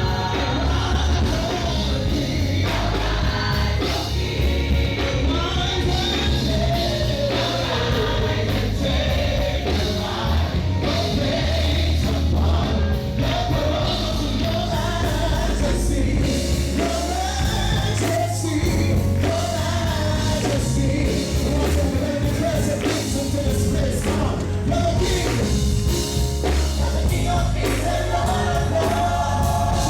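Live gospel worship music: a band with heavy bass and drums plays under singers carrying a wavering melody.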